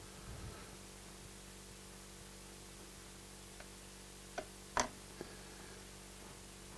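A few light clicks as a steel dental pick pries at a foot on the plastic base of a battery charger, one click louder than the rest, over a faint steady hum.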